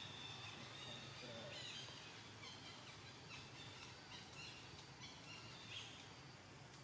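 Faint outdoor ambience: a low steady hum with scattered short, high bird chirps.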